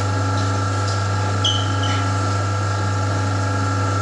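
Steady electric hum of a semi-automatic metal zipper slider mounting machine's motor running idle, with a brief high squeak about a second and a half in.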